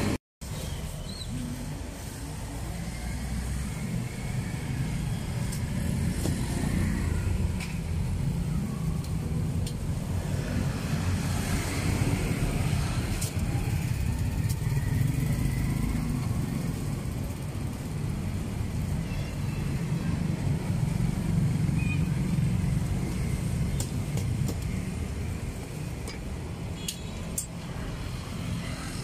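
Street traffic with motorbikes and cars passing, a steady low rumble, with a few sharp knocks of a cleaver chopping on a wooden chopping block.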